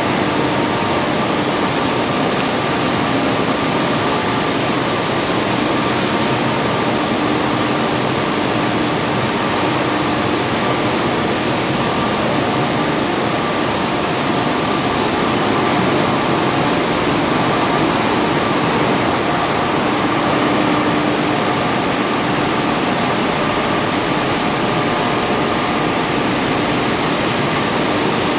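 Steady rushing noise of machinery in an industrial hall, with a faint hum of several steady tones running under it.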